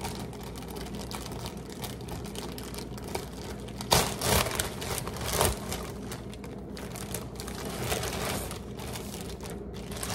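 Clear plastic bag of tortillas crinkling and rustling as it is opened and handled and a tortilla is pulled out, with louder rustles about four and five and a half seconds in.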